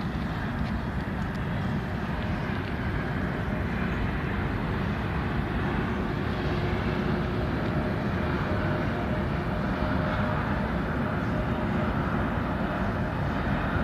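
Train running past with a steady, dense rumble just after its horn has sounded, growing slightly louder toward the end.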